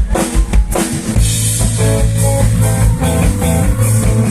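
Live band playing rock-style music: a few drum hits in the first second, then guitar, bass and drum kit playing together from about a second in.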